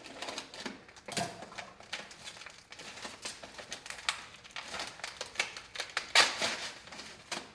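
Paper and cardboard packaging being handled and torn open by hand as a parcel is unpacked. Quick, irregular rustles, crinkles and scrapes, with the loudest rustle about six seconds in.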